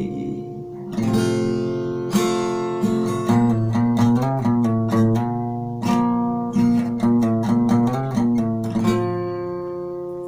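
Acoustic guitar strummed in chords, a rhythmic instrumental passage with no singing. A last chord about nine seconds in is left to ring and slowly fade.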